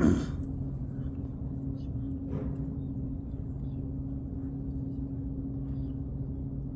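Steady low electrical or mechanical room hum in a mosque during the silent bow of the prayer, with a brief short noise right at the start and a faint one about two seconds later.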